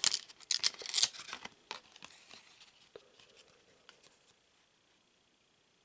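Trading cards being handled, with the card stock rustling and scraping as the cards slide against each other and are laid on a pile. It is loudest in the first second or so, then fades to a few light taps.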